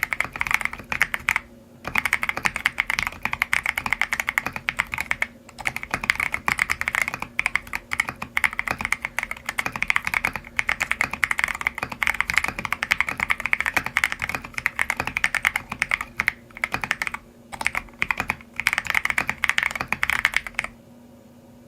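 Fast continuous typing on a custom mechanical keyboard fitted with Lelelab Y2K tactile MX-style switches, a dense run of crisp keystroke clicks with a few short pauses. The typing stops shortly before the end.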